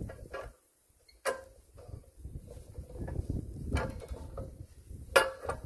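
Greenlee 1818 ratchet pipe bender being worked by its handle during a bend: three sharp metallic ratchet clicks, about a second in, near four seconds and just past five seconds, over a low rumbling handling noise.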